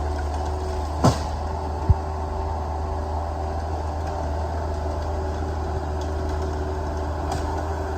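Heavy diesel engine idling steadily, with two short knocks close together near the start.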